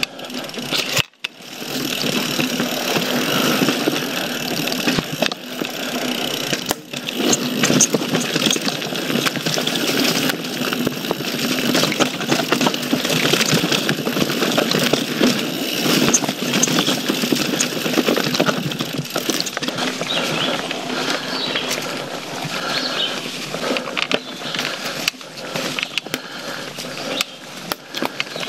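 YT Jeffsy full-suspension mountain bike rolling fast over a dirt and leaf-covered trail: steady tyre and trail noise with constant clatter and rattle from the bike over bumps. The sound cuts out briefly about a second in.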